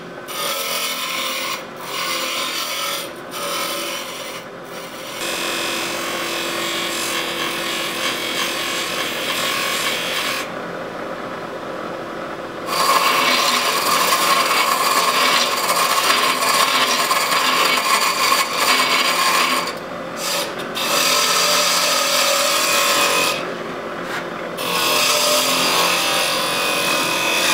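Woodturning on a JET lathe: gouges cutting a spinning wooden blank, a rough scraping hiss with chips flying. Short breaks in the first few seconds come as the tool lifts off, and there is a quieter stretch at about ten to twelve seconds. After that the cutting grows louder, with a steady ringing tone.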